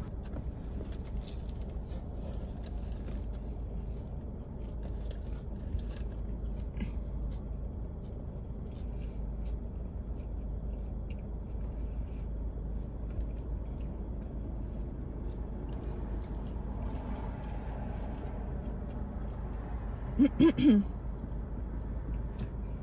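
A person eating in a parked car: quiet chewing and small crackles of food and packaging over a steady low rumble of the car and traffic. Near the end comes a short, loud voiced sound from the eater.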